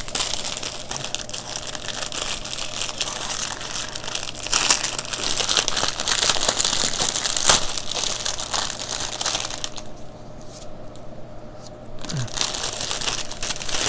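Clear plastic bag crinkling as hands handle it, with the small bagged packets of diamond-painting drills inside rustling against it. The crinkling is loudest in the middle, eases off briefly about ten seconds in, then picks up again.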